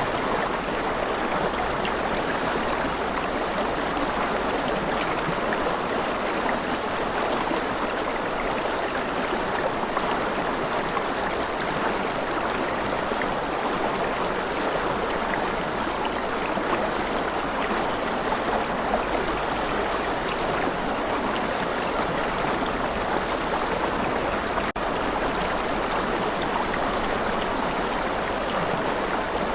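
Rushing river: a steady, even wash of flowing water, with a momentary dropout about three-quarters of the way through.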